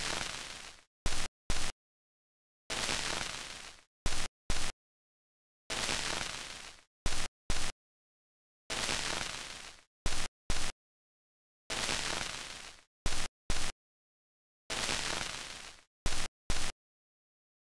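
A repeating pattern of noise bursts every three seconds: a hiss that fades away over about a second, then two short, sharp hits, with dead silence in between.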